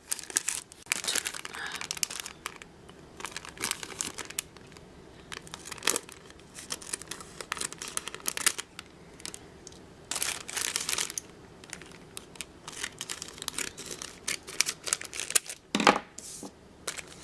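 Plastic packaging of a die-cut ephemera pack being opened and handled: crinkling and tearing in irregular bursts, with a sharper rustle about a second before the end.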